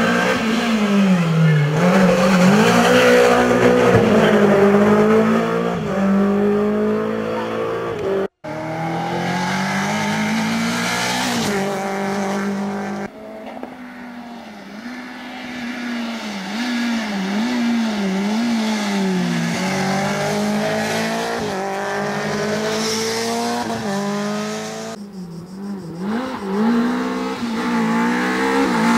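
First-generation Renault Clio rally car's four-cylinder engine revving hard at full throttle, its pitch climbing and dropping again and again as it accelerates, shifts gear and lifts off for corners. The sound breaks off abruptly a few times between edited passes.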